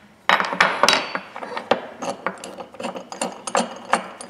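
Irregular metallic clicks and clinks as a small steel pipe wrench is handled and taken apart: its hook jaw, knurled adjusting nut and frame knock and rattle against each other.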